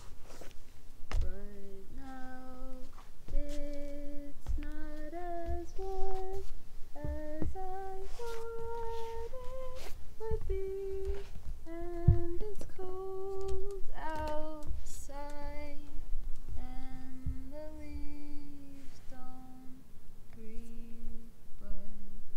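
A voice humming a slow wordless melody, one held note after another, stepping up and down in pitch, with scattered soft low knocks beneath.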